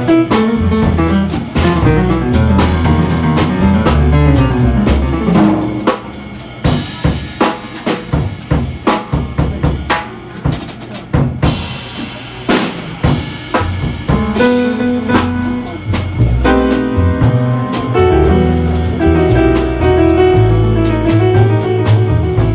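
Jazz band playing: full band with bass for the first few seconds, then a drum solo of separate kit hits for about eight seconds, then the band comes back in.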